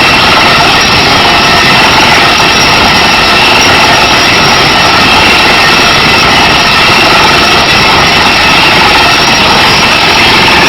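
Kaishan KW20 water-well drilling rig running: a loud, steady machinery noise with no change in pitch or level.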